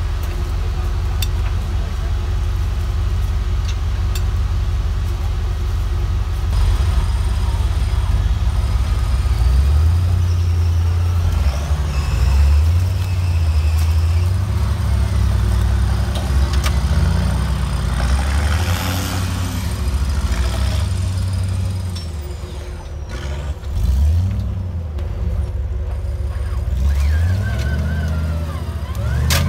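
Off-road 4x4 truck engine running at low revs, then revving up and down over and over as the truck works over the course, with revs climbing again near the end.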